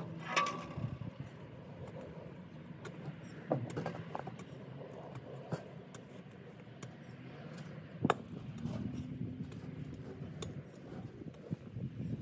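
A steady low outdoor hum, with a few sharp knocks, the loudest about eight seconds in.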